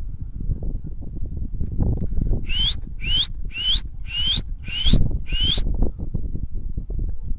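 Strong wind buffeting the microphone as a steady low rumble. In the middle come six short high calls, each rising in pitch, about half a second apart.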